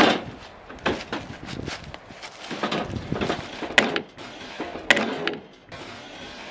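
Hammer blows, as when nails are being driven: a quick uneven run of knocks in the first two seconds, then slower single strikes, a couple of them ringing with a metallic note around four and five seconds in.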